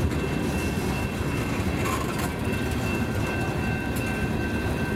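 Tank cars of a slow freight train rolling past, a steady low rumble of steel wheels on the rails with a thin steady high tone over it and a couple of faint clicks.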